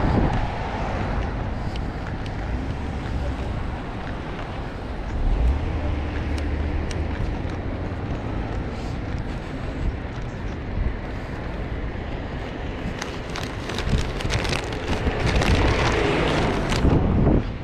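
Road traffic on a city street with wind buffeting the microphone, and a car passing close by near the end.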